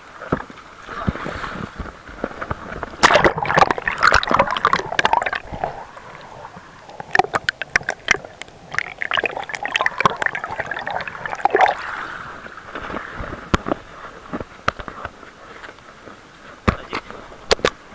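Seawater sloshing, gurgling and bubbling against a camera's microphone as the camera is dipped into a rocky tide pool, with crackling splashes loudest about three seconds in and again from about seven to twelve seconds in.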